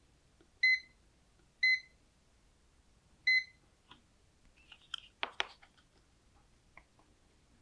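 UNI-T digital clamp meter giving three short high beeps as it is switched over to measure capacitance. A few clicks and handling knocks follow, about five seconds in.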